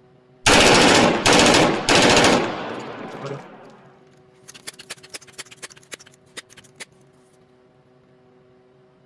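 Three loud bangs in quick succession, each ringing out and dying away over a couple of seconds, followed by a run of faint, irregular clicks.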